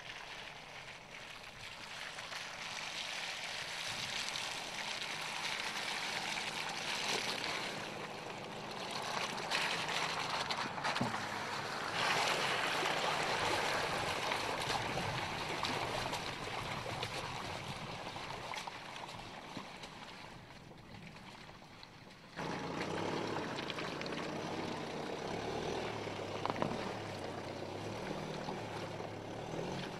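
Mercedes-Benz GLK 220 CDI 4MATIC's four-cylinder diesel working off-road, with its tyres churning and splashing through mud and water. About 22 seconds in the sound cuts abruptly to a louder, clearer engine note.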